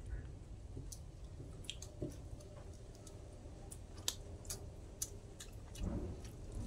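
People eating by hand at close range: chewing and wet mouth smacks, with scattered short sharp clicks and a fuller wet sound about six seconds in.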